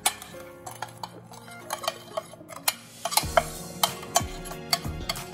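Stirring a dry marinade of ground coffee, sugar and spices in a bowl: a utensil clinking and scraping against the bowl in quick, uneven strokes, with a longer gritty scrape a little past the middle.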